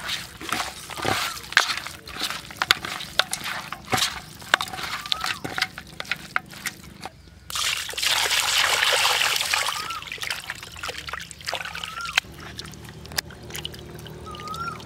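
Wet squelching and slapping of raw rabbit meat kneaded by hand in a steel bowl. About halfway through, water is poured from a bucket over the meat for a few seconds as it is rubbed and rinsed, followed by quieter sloshing as the meat is lifted from the water.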